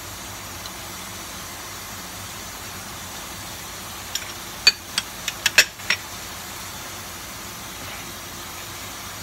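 Diced bell peppers, corn and chicken sizzling in a frying pan with a steady hiss. About four seconds in, a quick run of sharp clinks and taps of kitchenware, over a couple of seconds.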